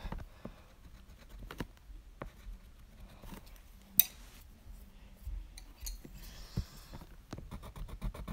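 Small clicks and taps of a pen and paper card being handled against a plastic bin, with one sharp click about four seconds in; from about seven seconds in, quick scratchy strokes of a pen drawing on the card.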